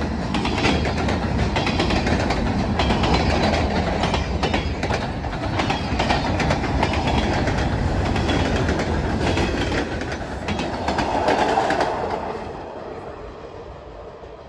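Canadian Pacific mixed freight train of covered hopper cars rolling past close by, its wheels clicking rhythmically over the rail joints. The noise dies down about twelve seconds in.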